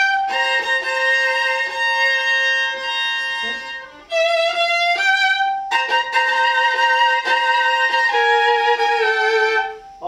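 Viola played with the bow: a melody of long held notes, broken off about four seconds in and started again from the same opening.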